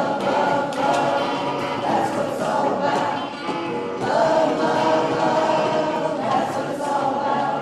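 A group singing a song together to a strummed electric guitar.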